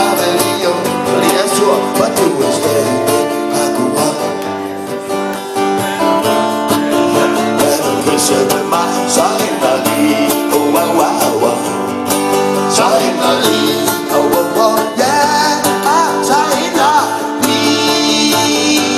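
Live acoustic guitars strummed together, with a man singing over them.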